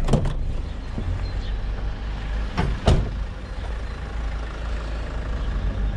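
Van engine running steadily, with a knock at the start and two knocks in quick succession about three seconds in.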